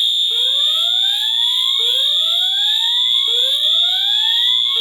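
Voice-evacuation fire alarm sounding its whoop tone: rising sweeps about every one and a half seconds, each cutting off abruptly, three in a row. A steady high-pitched tone sounds under them throughout.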